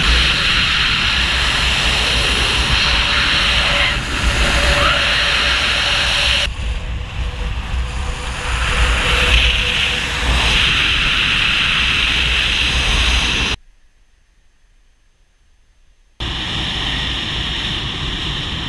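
Wind rushing over an action camera's microphone in paraglider flight: a loud, steady rush with a deep rumble. It drops almost to silence for a couple of seconds about two-thirds of the way through, then comes back.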